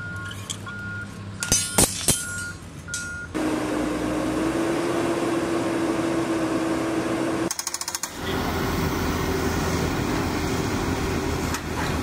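Construction machinery: a reversing alarm beeps in short, evenly spaced tones, with a few sharp knocks in the first seconds. Then a heavy engine runs with a steady hum, broken by a quick rattle about eight seconds in.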